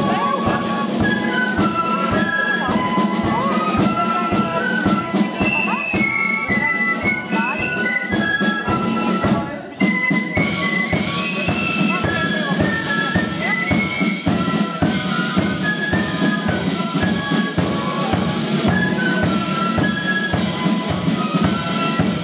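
A fife and drum band playing a march: fifes in unison carry a high melody over steady side-drum beats. The music breaks off briefly about ten seconds in, then starts again.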